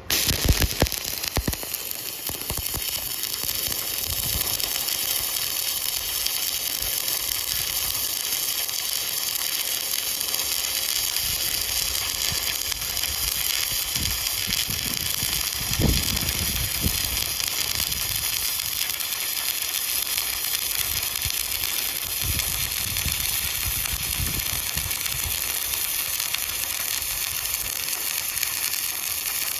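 Stick (arc) welding: the electrode arc strikes up abruptly and burns steadily, with a continuous frying, sizzling crackle.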